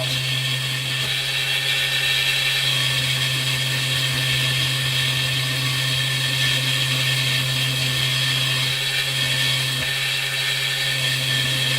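Small lathe running steadily, spinning a 3 mm brass rod while a chalked file is held against it to take the diameter down: a constant motor hum under a high, even hiss.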